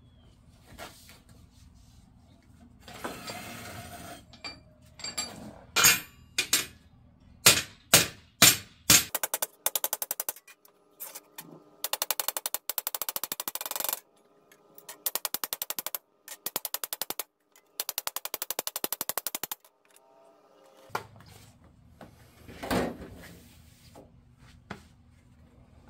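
Hammer beating a strip of sheet metal flat on a concrete floor, to straighten a bent end so it can be re-bent at a new spot. A few single blows come first, then long runs of rapid, evenly spaced blows with short pauses between them.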